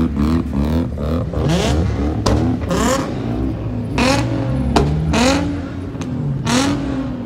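Nissan 350Z's V6 revved hard again and again as it pulls away, the engine note climbing in pitch each time, with several sharp exhaust pops and bangs between the revs.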